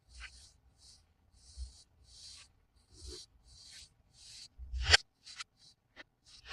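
Hands handling toy packaging: short scratchy rubbing and rustling sounds, about two a second, with a sharp click about five seconds in.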